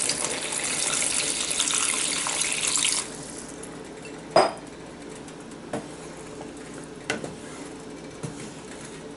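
Water pouring in a steady stream into a pan of curry gravy, stopping sharply about three seconds in. Then a wooden spatula knocks against the pan four times as the gravy is stirred; the first knock is the loudest.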